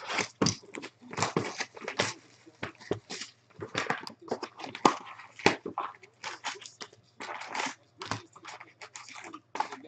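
A sealed 2017 Topps Chrome baseball hobby box being torn open along its tear strip, then its cardboard lid flipped up and the foil card packs rustling and crinkling as they are pulled out: a run of irregular tearing, scraping and crinkling noises.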